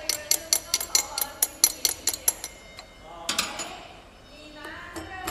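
Rapid sharp metallic clicks, about five a second, from a hand tool worked on the steel workhead fixture of a tool and cutter grinder, stopping about two and a half seconds in. A short scraping rasp follows about a second later.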